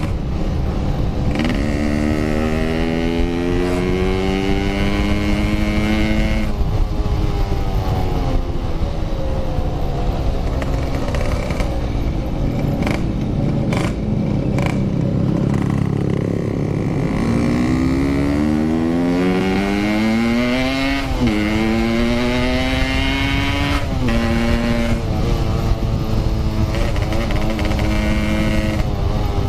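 Motorcycle engine under hard acceleration, its pitch climbing through the gears again and again and dropping at each upshift, then holding steady near the end. A low rushing of wind on the bike-mounted camera's microphone runs under it.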